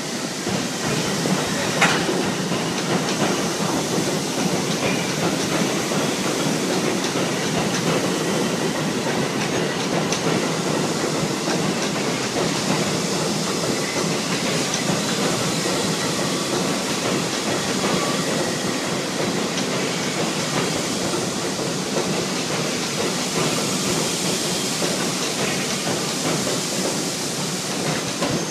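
An R62A subway train pulls out of an elevated station and runs past, its wheels on the track making a steady, loud noise throughout, with a sharp click about two seconds in.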